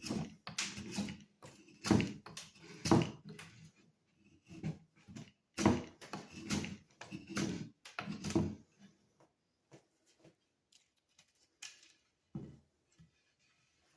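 Handling noise: an irregular run of knocks, scrapes and rustles close to the microphone for about eight and a half seconds, then a few scattered clicks.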